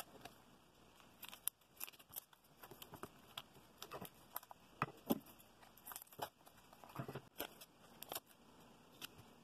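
Clear plastic packing tape being laid over a paper pattern and smoothed down by fingers: faint, irregular crinkling and soft ticks.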